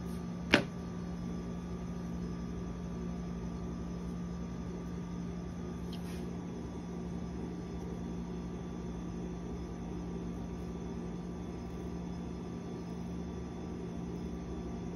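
A steady low mechanical hum, broken about half a second in by one sharp, loud click and, around six seconds in, by a much fainter click.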